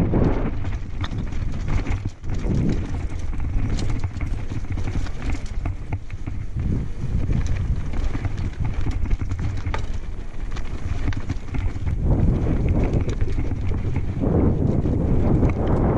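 Mountain bike rolling down a loose, rocky gravel track: tyres crunching over stones with frequent sharp knocks and rattles from the bike, over a steady rumble of wind on the microphone that swells louder near the end.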